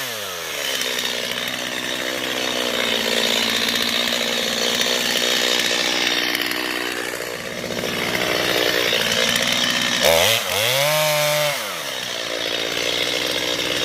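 Chainsaw cutting into a tree trunk during the felling cut, its engine held under load. About ten seconds in it revs up sharply and falls back, then runs lower toward the end.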